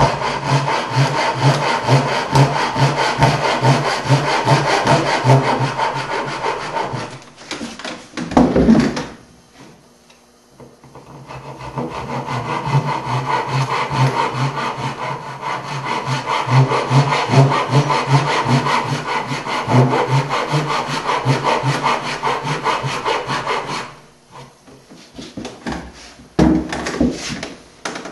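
Japanese-style pull saw cutting the pins of a half-blind dovetail in a hardwood drawer front: rasping strokes at a steady rhythm, about two a second. The strokes run in two long stretches, broken by a short pause with a thump about eight seconds in, and stop a few seconds before the end.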